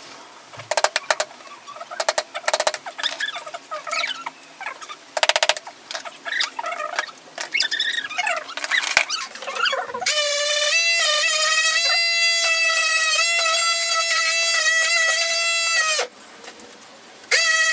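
Small handheld electric detail sander running with a steady high whine for about six seconds, rising briefly in pitch as it spins up about ten seconds in and cutting off suddenly, then running again for a moment near the end. Before it, scattered knocks, clicks and quick rattles of hand tools being handled on a table.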